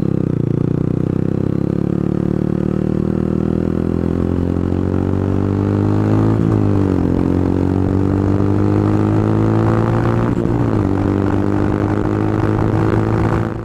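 Vehicle engine running under load, loud and steady, its pitch dipping and then climbing again twice, about six and a half and ten and a half seconds in. It cuts off abruptly at the end.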